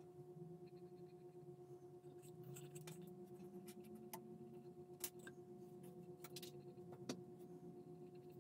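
Near silence: faint steady room hum, with a few light clicks and taps, about four, five and seven seconds in, from handling the model stand and paintbrush.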